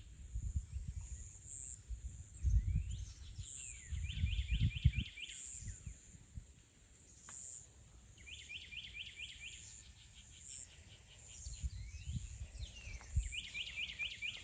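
A songbird singing short phrases of about six quick repeated notes, four times, with some slurred sweeping calls between them, over a steady high-pitched insect drone. Low thumps and rumbles come and go beneath, loudest about two to five seconds in and again near the end.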